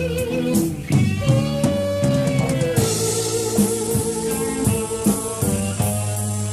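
Rock band playing: a drum kit keeps a steady beat under long held notes, with electric guitar, and cymbals come in about three seconds in.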